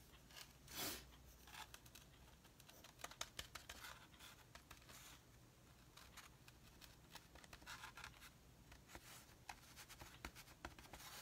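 Faint scratching, rubbing and small clicks of a foam pouncer being dabbed and worked into paint on a foam plate, with one brief louder rustle about a second in.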